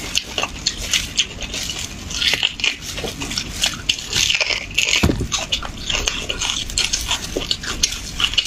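Wet mouth sounds of sucking and chewing beef bone marrow out of a cut bone, close to the microphone: rapid smacking clicks and slurps.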